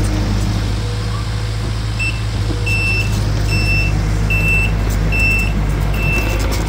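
Takeuchi TL10V2 compact track loader's diesel engine running steadily, with a backup alarm starting about two seconds in and beeping a little more than once a second as the machine reverses.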